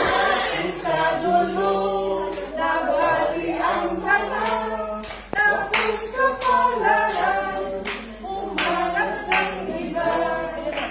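A small group of women singing a Filipino folk song a cappella, with scattered hand claps.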